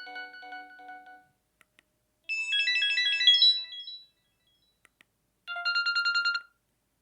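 Samsung M1200M mobile phone playing its ringtones: one melody fades out in the first second, a short tune of bright electronic notes comes about two seconds in, and near the end a quick run of rapidly repeated beeps lasts about a second.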